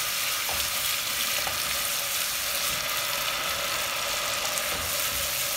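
Ginger-garlic paste frying in hot mustard oil in an aluminium pressure cooker, a steady sizzle as its raw smell is cooked off, with a few light taps of a wooden spatula.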